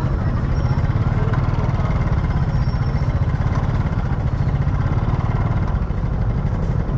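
Open-air market ambience dominated by a steady low rumble, with a few faint, brief voices or chirps above it.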